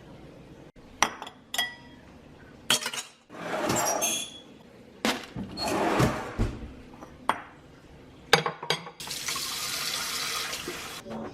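Kitchen washing-up: dishes and glassware clinking against each other in a sink, with bursts of running water and a tap running steadily near the end.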